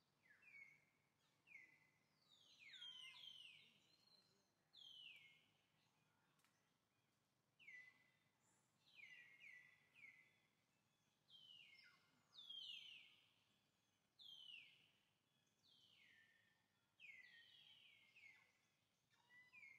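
Faint bird calls: a series of short whistled notes, each falling in pitch, repeating every second or two, some overlapping in quick runs.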